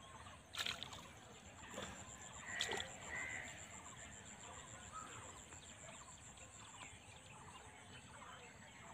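Faint splashing and sloshing of hands groping for fish in shallow muddy water, with two sharper splashes in the first three seconds, over a steady high pulsing trill.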